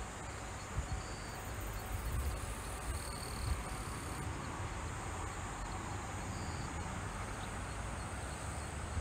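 Summer field ambience: a steady hiss of insects, with a few short high chirps here and there and an uneven low rumble underneath.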